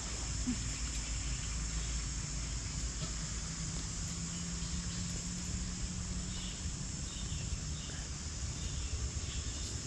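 Insects droning steadily at a high pitch, over a constant low rumble.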